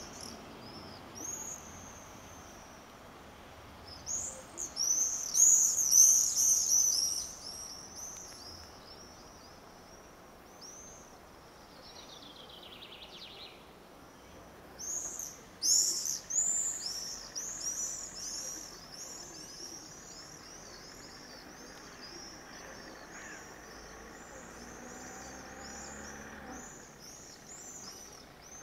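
Small birds chirping in quick, high-pitched runs of short calls, loudest about four to eight seconds in and again from about fifteen seconds on, over a steady outdoor background hiss.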